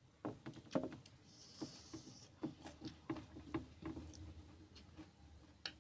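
Close-miked eating sounds: irregular wet mouth clicks and smacks of chewing, with fingers mixing and squishing rice on a steel plate. A brief hiss comes about a second and a half in.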